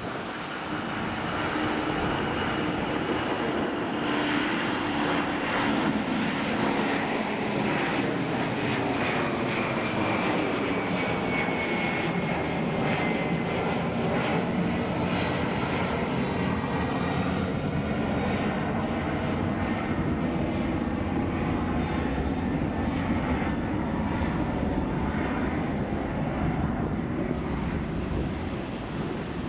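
Twin-engine jet of a Delta Air Lines Boeing 767-300ER going by. The engine noise swells about a second in and holds as a steady rumble, while a high whine and a lower tone glide down in pitch over several seconds as it passes.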